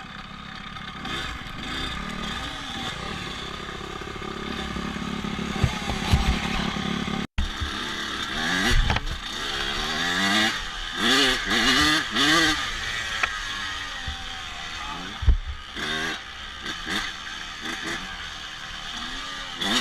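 Dirt bike engine running, its revs rising and falling several times in the middle of the stretch, with a brief dropout in the sound about seven seconds in.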